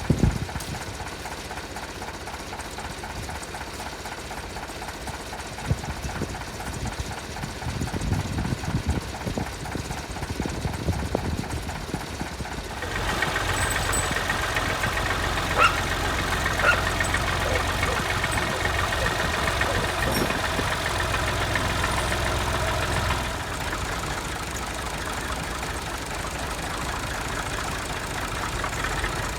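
Massey Ferguson 135 tractor engine running. It is steady at first, then louder and harder-working for about ten seconds from about 13 s in as the tractor is driven, then settles back to a steadier run.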